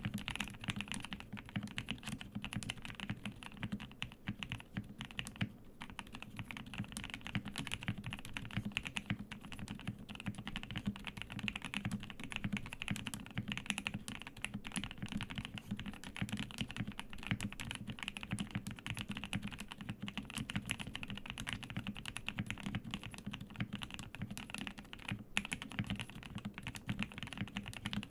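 Steady, fast typing on a Zuoya GMK87 mechanical keyboard with hand-lubed Gateron Milky Yellow linear switches: a continuous stream of deep, rounded keystrokes that stops at the end.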